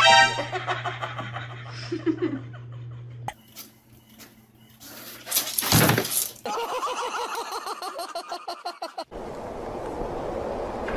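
A person laughing in bursts, with short pulsing laughs. There is a loud noisy clatter lasting about a second around six seconds in, and the sound cuts abruptly a few times.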